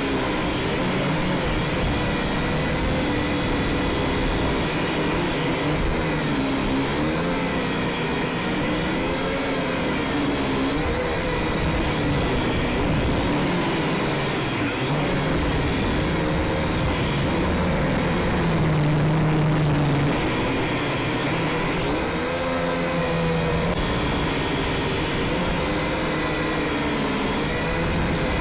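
Syma X5SC quadcopter's small electric motors and propellers whirring steadily, the pitch wavering up and down as the throttle changes, briefly louder about two-thirds of the way through.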